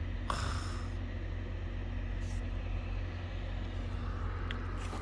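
Steady low background rumble with a faint constant hum, and a short rustle about a third of a second in.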